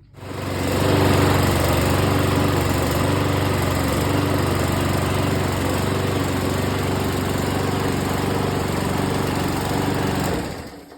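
Briggs and Stratton 450 lawnmower engine running steadily after its carburettor main jet was cleared and the ball bearing refitted; it sounds to be running better. The sound rises within the first second and cuts off shortly before the end.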